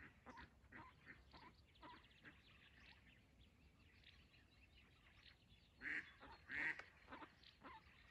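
Live decoy duck quacking in a faint run of short calls, about two a second, with two louder quacks about six seconds in.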